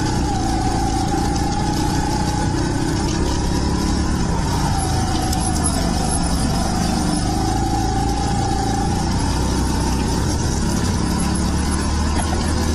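Rental go-kart's small engine running at speed, heard from onboard. Its pitch sinks twice and climbs back as the kart slows for corners and accelerates out.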